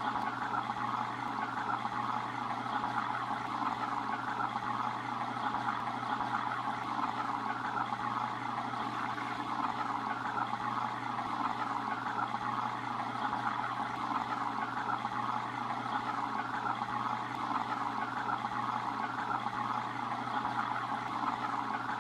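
Steady trickling and bubbling of water from a running aquarium filter, with a steady low hum underneath.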